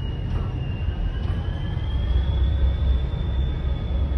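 Freight train of loaded flat wagons rolling past, a steady low rumble of wheels on the rails. Over it runs a thin high whine that dips slightly in pitch, then rises again.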